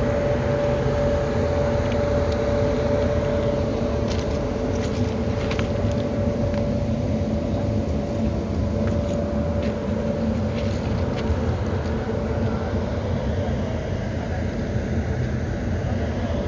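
Steady machine hum: two steady tones over a low rumble, one of the tones dropping out about a third of the way in and coming back near the end.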